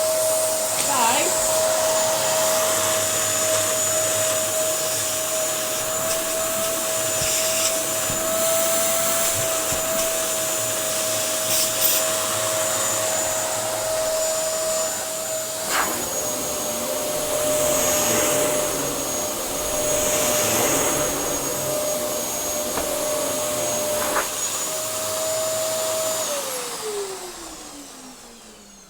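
Dyson DC07 upright vacuum cleaner running, with a steady motor whine over rushing air and a few sharp knocks. Near the end it is switched off, and the whine slides down in pitch as the motor winds down.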